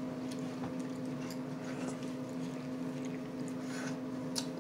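A steady low hum, with faint clicks and scrapes of cutlery on plates as people eat.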